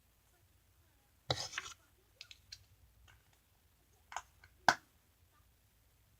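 Sticky slime being poked and pulled by hand, giving a short crackle about a second in and a few small clicks and pops, the sharpest near the end.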